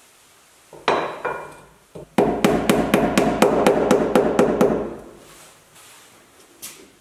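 Hammer striking a steel rod in the rear torsion bar housing of a Porsche 911: one ringing metal blow, a second, then a quick run of about a dozen strikes, roughly five a second.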